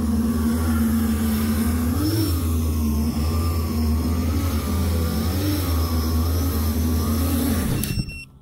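10-inch FPV quadcopter's motors and propellers humming, the pitch rising and falling with throttle, then cutting off abruptly near the end.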